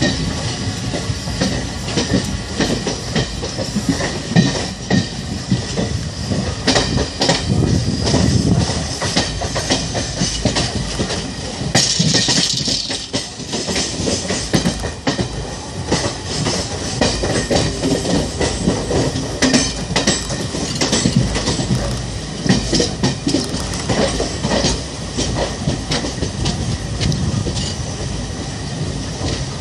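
Indian Railways passenger coach running on the track, its wheels clattering over rail joints with continuous rolling noise, heard from the open coach doorway. A brief hiss comes about twelve seconds in.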